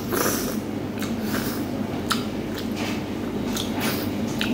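Close-up eating sounds: wet chewing and lip smacking as seafood is eaten by hand, a string of irregular short smacks and clicks.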